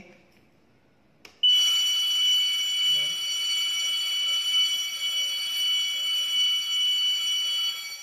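Fire alarm sounder set off by the Evacuate button on a conventional fire alarm control panel during a functional test: a click, then about a second and a half in a loud, steady, high-pitched alarm tone that holds unbroken until it is silenced near the end.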